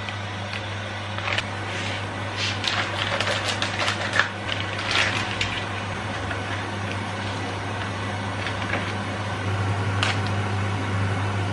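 A kitchen appliance hums steadily while light clicks and taps of kitchenware come in a cluster over the first five seconds. There is one sharp click about ten seconds in, and the hum grows slightly louder near the end.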